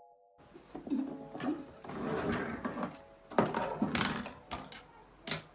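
Fabric rustling and scuffing as satin garment pieces are handled on a table, with several sharp knocks, the loudest about three and a half seconds in. Faint background music plays underneath.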